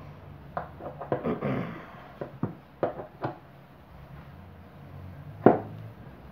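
A series of sharp knocks and clicks of the fan motor's parts being handled and fitted while the rotor is centred in the stator. The loudest knock comes about five and a half seconds in.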